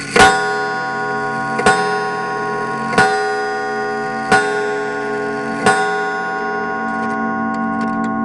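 Mid-1980s teak regulator wall clock striking five times, each stroke about a second and a half apart and ringing on. The pendulum's ticking is heard under the strikes and more plainly near the end. It is heard from inside the clock's case.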